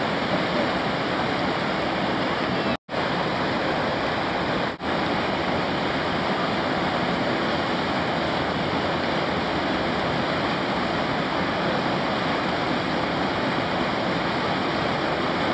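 Steady rushing of river whitewater churning through a standing play wave, broken by two brief drops to silence about three and five seconds in.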